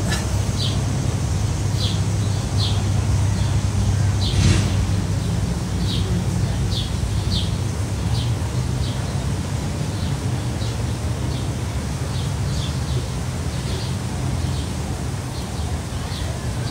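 Small birds chirping in short, high, separate notes about once or twice a second over a steady low outdoor rumble, with one brief louder noise about four seconds in.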